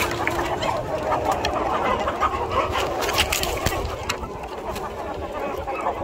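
A large flock of free-range chickens, mostly roosters, clucking together in a dense, overlapping chatter, with scattered sharp clicks.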